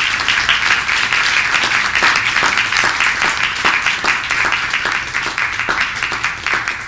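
A small audience applauding: many hands clapping in a dense, steady patter.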